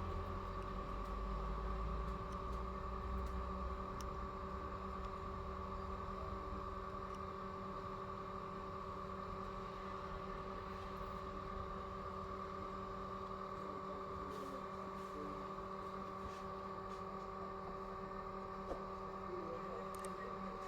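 Steady electrical hum made of several fixed tones, with a low rumble in the first few seconds and a few faint ticks.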